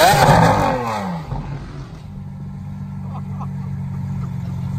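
Lamborghini Aventador SVJ's V12 revving, its pitch sweeping up and down, then dropping off about a second in to a steady low idle as the car rolls away.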